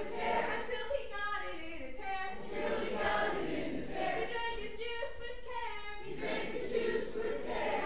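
A small group of women and girls singing a song together into a microphone.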